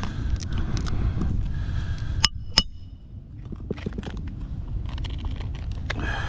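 Wind rumbling on the microphone, with scattered scrapes and clicks and two sharp ringing clicks close together about two and a half seconds in.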